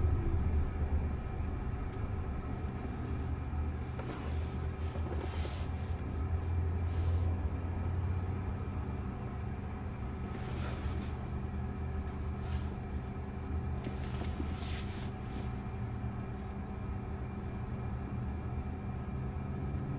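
Cabin sound of a stationary Jaguar I-PACE electric car: a steady low rumble with a faint hum, and a few brief rushes of noise from traffic outside, about four, ten and fourteen seconds in.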